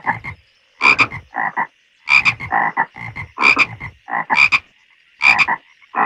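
Frogs croaking in a pond: short, pulsed croaks in quick succession, about ten in six seconds, in two alternating kinds that sound like more than one frog calling back and forth. A faint steady high hum sits behind them.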